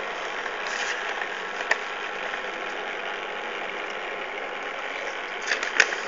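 Steady whirring machine noise, with a faint click about two seconds in and a few ticks near the end.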